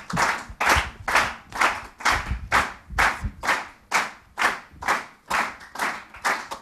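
Audience clapping in a steady unison rhythm, about two claps a second.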